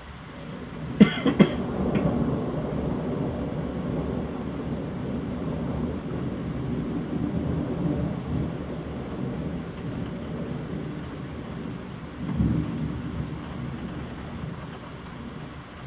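A close thunderclap during a heavy thunderstorm: two sharp cracks about a second in, then a long low rumble of thunder that swells again near the end before fading.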